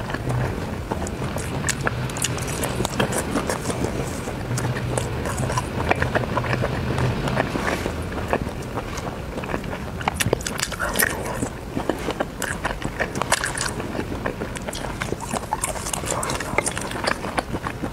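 Close-miked eating sounds: chewing and moist mouth clicks, with crackles and clicks as grilled food is handled and pulled off wooden skewers with plastic-gloved fingers.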